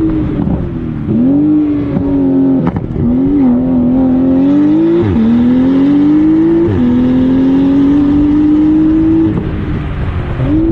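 Race car engine at full throttle, its pitch climbing in each gear and dropping sharply at each of several upshifts, with a sharp crack at one shift about three seconds in.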